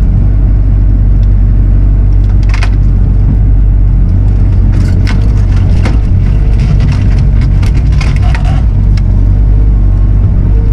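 A Bobcat machine's diesel engine running hard under load, with wood and fence debris cracking, splintering and being crushed: a snap about two seconds in, then a run of cracks through the middle.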